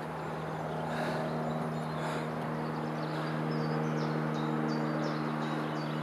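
Forest ambience: a steady low hum made of several even tones, with a few short high chirps in the latter half.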